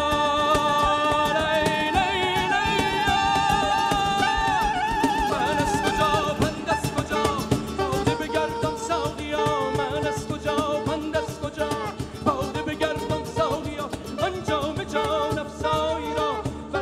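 Live Persian music: a male voice holds one long ornamented note with vibrato over plucked strings. About four and a half seconds in the voice stops and the band goes on with a busy instrumental passage of quick plucked lute and bass notes over a steady drum beat.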